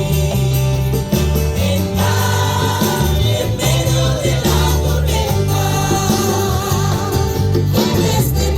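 Congregational worship song sung in Spanish by a group of voices with band accompaniment: steady bass and drums under the sung melody.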